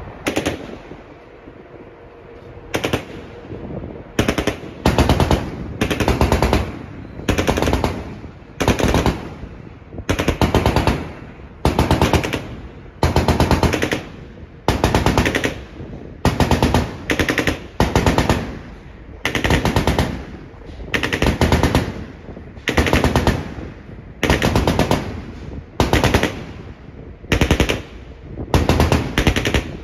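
Shipboard automatic gun firing short bursts at a target on the water, each burst a rapid string of shots, about one burst a second after the first few seconds.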